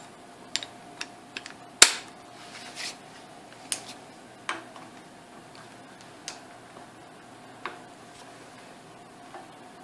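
Scattered, irregular clicks and light metal taps of hand tools, with one louder knock about two seconds in and a brief scrape just after: an armorer's wrench and torque wrench being handled and fitted onto an AR-15 barrel nut. A faint steady hum runs underneath.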